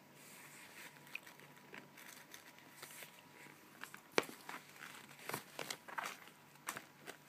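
Irregular light clicks and crinkly rustling from handling and from fingers tapping an iPad's on-screen keyboard, with the loudest click about four seconds in.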